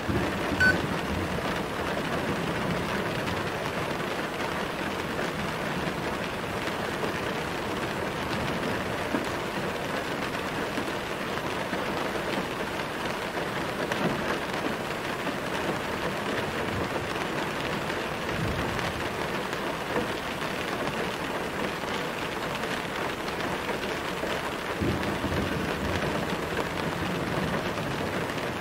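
Steady, gentle rain falling: an even, unbroken hiss of drops, with a few soft low swells.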